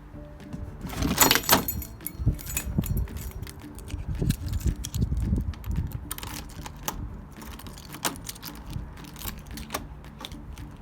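Keys jangling as they are handled, with scattered clicks and knocks; the loudest jangle comes about a second in.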